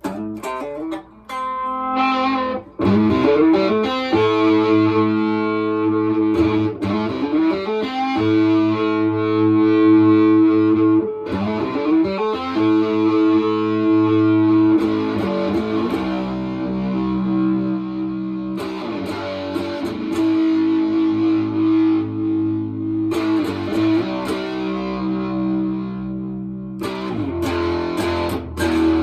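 Electric guitar played through a Harmonic Percolator fuzz pedal, showing off the pedal's voltage control. Distorted chords are struck and left to ring for a few seconds each, changing every three to four seconds.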